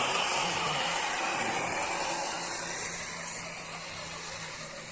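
Electric motor and gear drivetrain of a 1:10 scale RC off-road car whirring steadily as it drives, with a thin high whine, easing off slightly towards the end.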